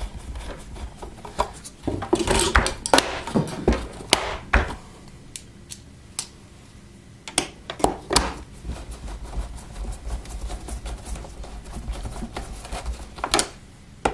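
Scattered clicks, taps and short scrapes of a screwdriver and hard plastic parts as screws are driven into a vacuum cleaner's plastic housing during reassembly.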